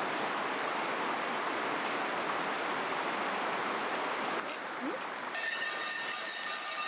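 Flowing river water, a steady rushing hiss. About four seconds in the sound changes abruptly, and faint steady high tones join a slightly different water sound near the end.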